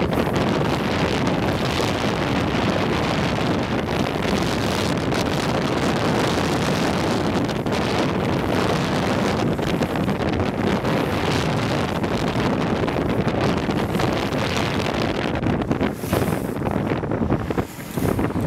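Wind rushing hard over the microphone at downhill speed, with road rumble underneath: a steady, loud rush of noise that dips briefly near the end.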